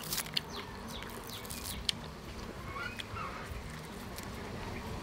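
Crispy fried fish skin and flesh being pulled apart by hand, giving a few sharp crackles, most of them in the first half-second and one about two seconds in. Birds call now and then in the background.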